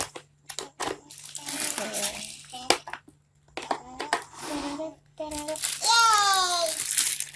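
Hard plastic toy kitchen pieces clicking and knocking together as they are handled and fitted into place. In the second half, young children's voices take over, the loudest a high call falling in pitch near the end.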